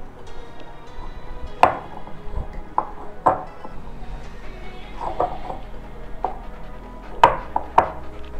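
Glass mixing bowl knocking and clinking against the stone counter and the hand as a potato dough is mixed by hand in it: scattered, irregular sharp knocks, the loudest about one and a half seconds in and twice near the end.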